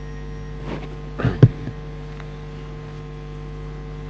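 Steady electrical mains hum, with a few brief knocks about a second in, the loudest near a second and a half.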